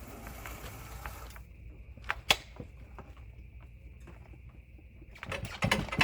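Scattered wooden and metal knocks and clatter of the chainsaw mill and a freshly cut slab being handled, the loudest knock a little over two seconds in and a quick cluster near the end. A steady high-pitched whine runs underneath.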